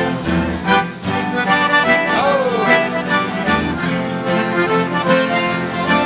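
Sertanejo band playing without vocals after the last sung line of the chorus, the accordion leading over the guitars, with one note sliding down about two seconds in.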